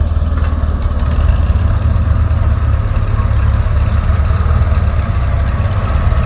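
Ferguson tractor's four-cylinder engine running steadily with a low, even throb as the tractor slowly manoeuvres a loaded trailer.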